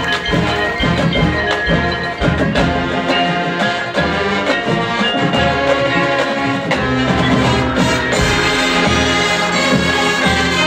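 Marching band playing: held chords from the winds over percussion strikes from the drums and the front-ensemble mallets.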